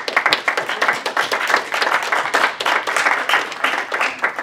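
A small group of people applauding, many hands clapping at once in a dense, steady patter.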